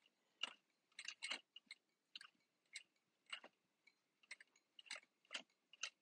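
Faint, irregular soft clicks and rustles of a sewing machine stitching slowly a few stitches at a time while cotton fabric is guided under the needle; no steady motor run.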